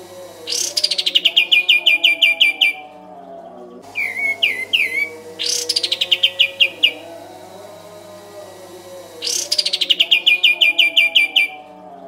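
Kapas tembak bulbul singing. It gives three fast strings of about a dozen sharp, evenly spaced notes, each opening with a falling sweep, with short warbled phrases between. A faint steady hum runs underneath.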